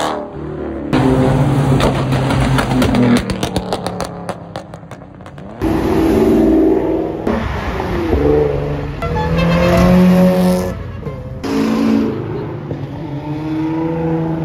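A succession of cars accelerating hard away one after another, engines revving up and rising in pitch through the gears. A fast crackling string of exhaust pops comes about three to five seconds in.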